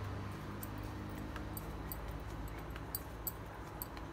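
Faint, scattered light clicks of glass bangles knocking together as hands shape a soft potato mixture, over a steady low hum.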